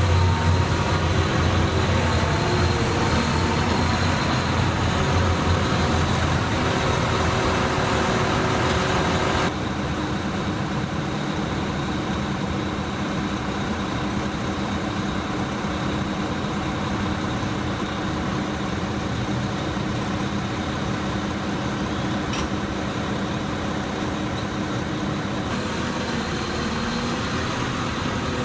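Heavy construction vehicles' engines running steadily, with the sound dropping abruptly about a third of the way in.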